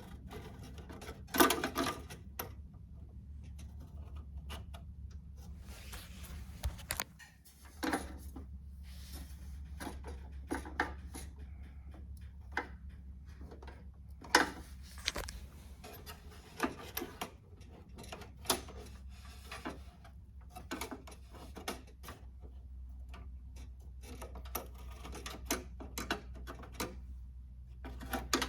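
Irregular clicks, knocks and scrapes of a PCIe adapter card being worked into a cramped desktop PC case, over a steady low hum.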